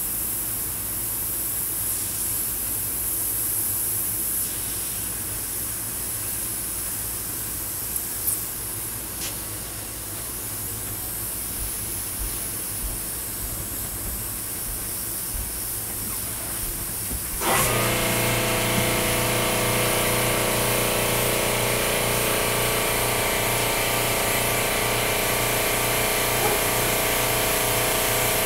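Harbor Freight double-action suction-feed airbrush spraying with a steady hiss of air. A little over halfway through, an air compressor motor starts suddenly and runs on with a steady hum under the hiss.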